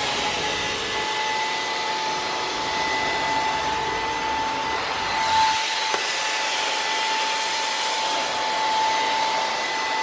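Bellini 24V cordless handstick vacuum running with its electric turbo brush tool, a steady high whine over a rushing hiss as it is pushed over a fabric couch cushion. A brief click about six seconds in.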